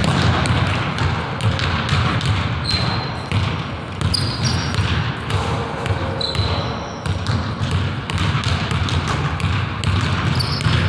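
A basketball being dribbled and bouncing on a hardwood gym floor, with many sharp thuds. Basketball sneakers squeak briefly on the floor several times.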